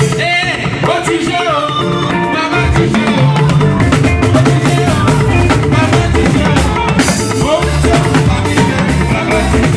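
Band music with a drum kit, bass and a singing voice. The bass and drums drop away for the first couple of seconds while the voice carries on, then the full band comes back in.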